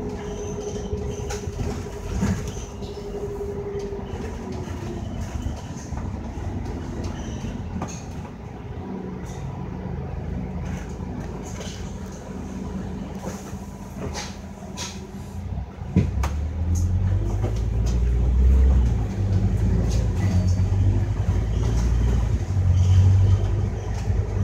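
Scania K310UD double-decker bus on the move, heard on board: a steady engine and road rumble with light rattles from the body. Early on a high whine slides down and fades. About 16 seconds in there is a thump, and the low engine rumble grows clearly louder and stays up as the bus pulls harder.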